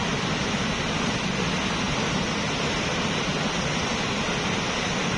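Steady, even rushing hiss of water, unbroken and unchanging in level.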